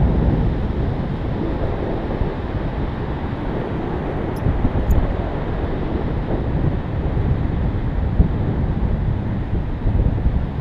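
Steady rushing and buffeting of wind on the camera microphone from the airflow of a paraglider in flight.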